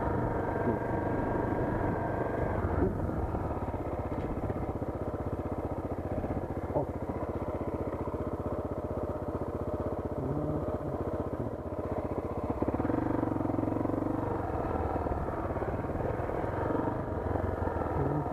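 Motorcycle engine running at a steady low speed, its firing pulses even throughout, with small changes in engine note about three seconds in and around thirteen seconds in.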